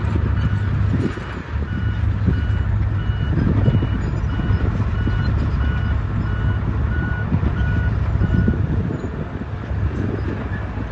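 Backup alarm of heavy construction machinery beeping about twice a second over a steadily running diesel engine; the beeping stops a little over two-thirds of the way through while the engine keeps running.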